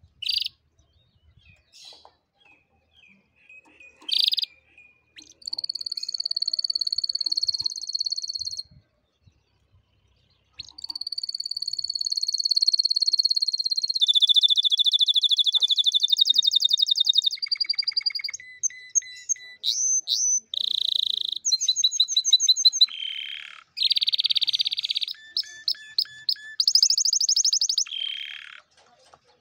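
Domestic canary singing. Two short chirps come in the first few seconds, then long phrases of fast trills and rolls that change every second or two, with a pause of about two seconds about a third of the way through.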